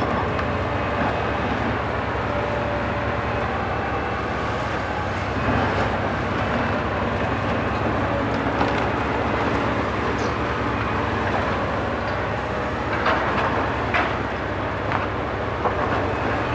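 Diesel engine and hydraulics of a Liebherr R974C high-reach demolition excavator running steadily while it crushes concrete, with scattered cracks and knocks of breaking concrete and falling debris, several in the last few seconds.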